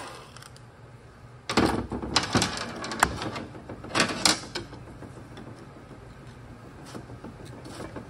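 Impact wrench run in short rattling bursts on the bolt of an AB60E transmission's manual lever position sensor, about a second and a half in, followed by a sharp click and metal clanks of tools handled on the steel bench.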